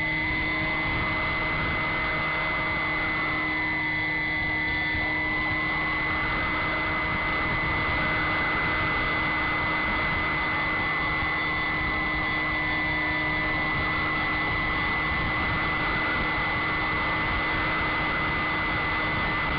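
An RC model airplane's motor and propeller running steadily at flying throttle, picked up by a camera on board, with wind rushing over the microphone. A constant high whine runs over a rushing noise that swells and eases every few seconds.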